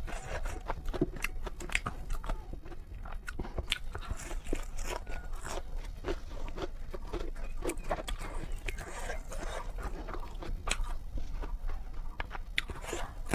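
Close-up eating sounds of a person chewing spicy noodles: an irregular run of small wet clicks and mouth smacks.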